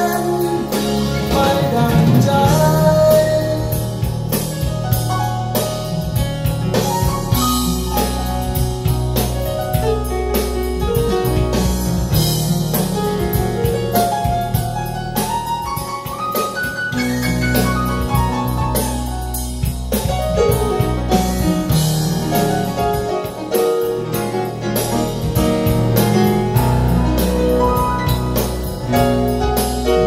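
A song with singing and drums played through a pair of ProAc D20r floor-standing loudspeakers in a listening room, with a full, steady bass line.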